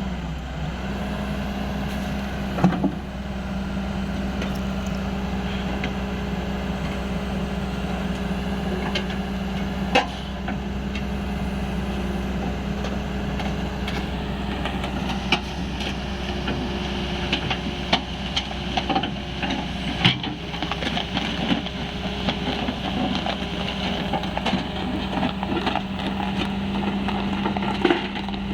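Excavator diesel engine running steadily at a constant pitch, with occasional sharp knocks.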